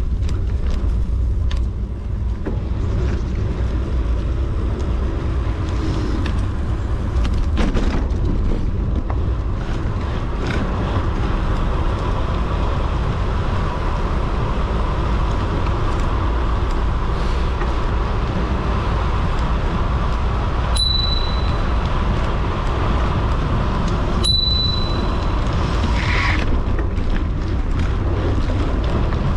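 Wind buffeting a bicycle-mounted action camera's microphone on a fast descent, over steady tyre and road noise with scattered small rattles and clicks. Past the middle come two short, high beeps a few seconds apart.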